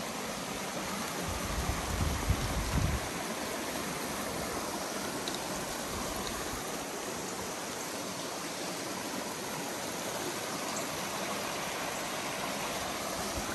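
Rocky mountain creek flowing over boulders in small cascades: a steady rushing of water. A few low bumps sound in the first three seconds.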